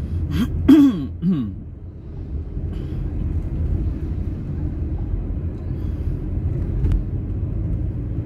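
Car driving slowly, heard from inside the cabin: a steady low rumble of engine and road noise. About half a second in there is a brief human vocal sound lasting about a second.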